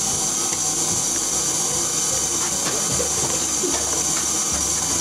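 KitchenAid Artisan stand mixer running steadily, its wire whisk beating a thick mascarpone and egg-yolk cream in the steel bowl.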